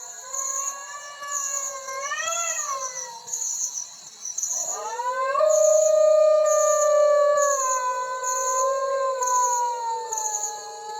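A dog howling at night: long drawn-out howls that swell and dip about two seconds in, break off briefly, then return as a long howl slowly falling in pitch. High insect chirping pulses evenly behind it.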